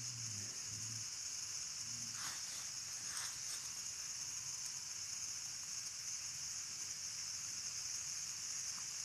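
Steady high-pitched insect chorus droning without a break.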